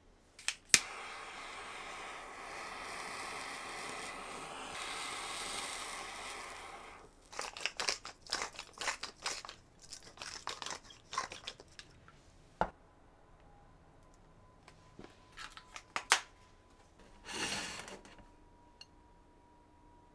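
A handheld butane kitchen torch clicks on and hisses steadily for about six seconds. Then a pepper grinder crunches in quick bursts for several seconds, followed by a few scattered clicks.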